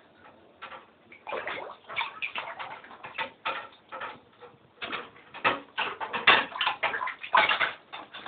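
A pet mink playing in water, making a quick, irregular run of short bursts of sound that starts about half a second in and gets busier toward the end.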